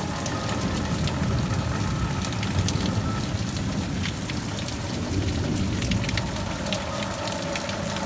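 Heavy rain pouring down: a steady hiss with many close drops ticking sharply.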